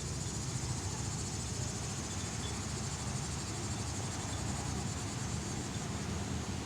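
Steady, high-pitched chorus of insects, such as crickets, over a low, uneven rumble of wind on the microphone.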